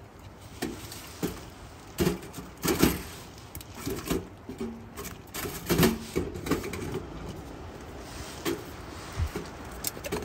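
Irregular knocks and clatter of a small steel wood stove being tended, its door handled and firewood put in, the loudest knocks about three and six seconds in.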